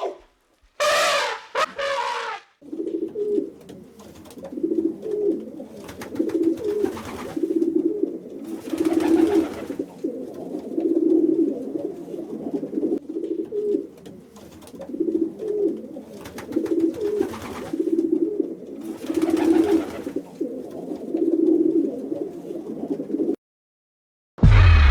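Pigeons cooing in repeated low phrases, one after another, after a short loud call about a second in. A sudden loud low noise comes near the end.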